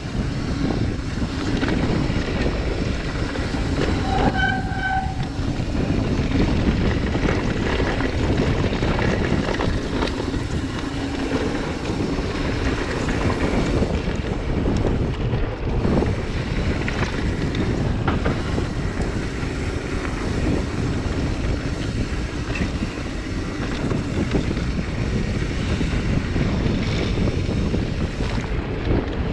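Mountain bike ridden over a dry dirt singletrack, heard from a chest-mounted camera: a steady rumbling rattle of tyres, chain and frame over the ground, mixed with wind on the microphone. A brief high whine comes about four seconds in.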